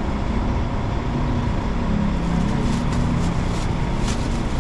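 Steady motor-vehicle noise: a bus engine running amid traffic, a continuous rumble with a faint low hum, cutting off suddenly at the end.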